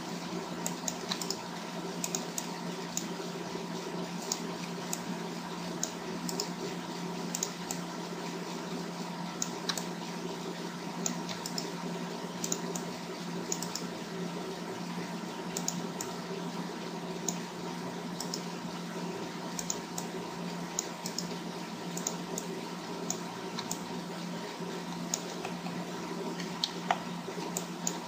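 Computer keyboard and mouse clicks, irregular and several a second, over a steady electrical hum.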